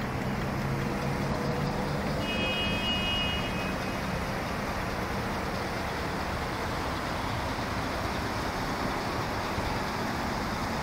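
A 2012 Chevrolet Caprice PPV police car sitting with its engine running, heard as a steady rush of noise. A brief high tone sounds about two seconds in.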